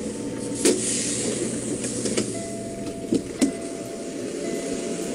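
Steady background noise inside a semi-truck cab, with a handful of sharp clicks and knocks. Two of the knocks come close together about three seconds in, and a faint steady tone enters about two seconds in.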